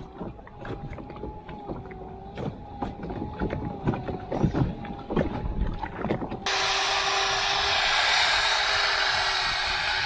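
Light knocks and clicks of a corroded metal exhaust elbow being handled. About six seconds in, a small electric grinder starts abruptly: a steady motor whine under a loud grinding hiss as it grinds corroded weld metal off the cracked exhaust elbow.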